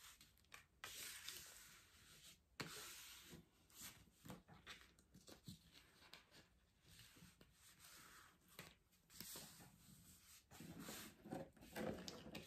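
Faint rustling and crackling of the protective film on a diamond painting canvas, peeled back from the glue layer and pressed flat again by hand, with a few small clicks; it is a little louder near the end.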